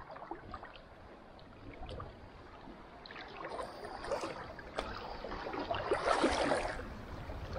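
Shallow seawater sloshing and splashing around the legs of someone wading, irregular and getting louder from about three seconds in.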